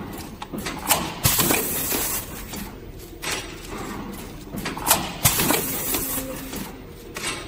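Automatic PET/PVC plastic lid forming machine running: sharp double knocks of the forming press about one second and five seconds in, each followed by about a second of rushing hiss, over a steady mechanical clatter.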